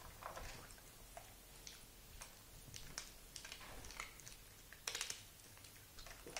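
A pug licking and chewing a lollipop: faint wet smacks and clicks at an uneven pace, with a louder cluster about five seconds in.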